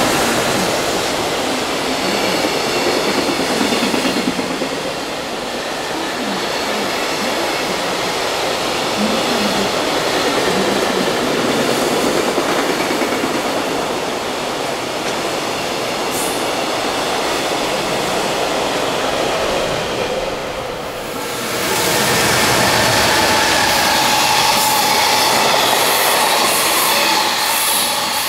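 JR Freight container train rumbling and clattering along the rails as it arrives at a freight terminal, with some wheel squeal. About 21 seconds in, the sound changes to another container freight train running past, louder.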